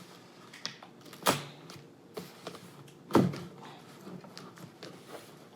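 Handling of a parcel being opened: scattered clicks and knocks, with two louder thuds about two seconds apart.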